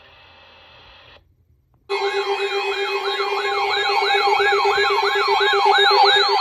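An electronic yelp siren starts about two seconds in, after a brief gap, sweeping rapidly up and down about three times a second over a steady lower tone.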